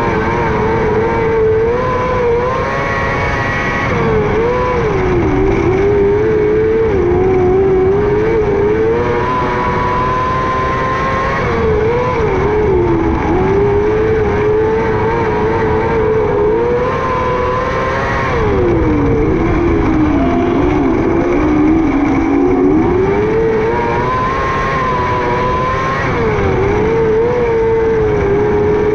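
600cc micro sprint car's motorcycle engine at racing revs, its pitch falling and then climbing back several times, about four seconds in, about twelve seconds in and at around nineteen to twenty-two seconds, as the throttle is lifted and reapplied.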